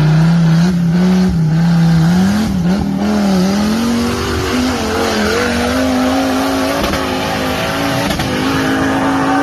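An off-road vehicle's engine revving hard and held at high revs, its pitch wavering and then climbing slowly, over a steady hiss of tyre or spray noise.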